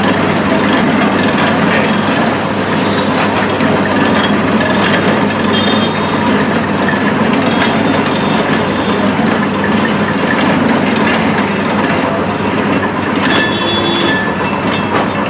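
A motor-driven sugarcane juice crusher running, its geared rollers grinding sugarcane stalks as they are fed through. A loud, steady mechanical noise with a low hum.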